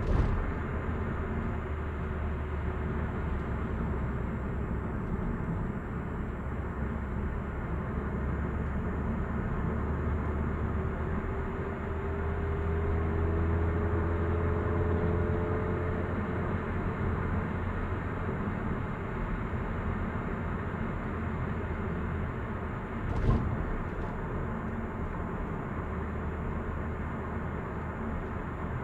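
Steady low road rumble of tyres and engine inside a Hyundai Avante (Elantra) cruising on an expressway, with a faint rising whine in the middle and a single sharp knock about two-thirds of the way through.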